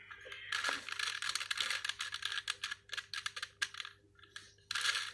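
4x4 Rubik's cube being turned by hand: rapid clicking and rattling of the plastic layers as middle slices and the whole cube are rotated, in two runs with a short pause about four seconds in.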